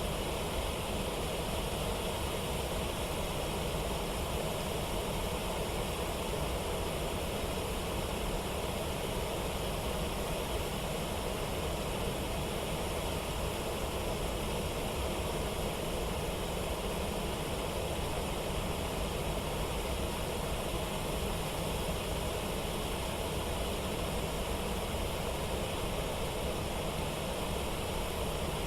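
Steady rush of water pouring over a river waterfall and rapids, unchanging throughout.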